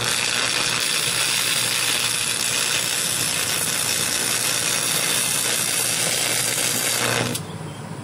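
Stick-welding arc crackling and hissing steadily as a bead is laid on steel, then cutting off abruptly about seven seconds in when the arc is broken.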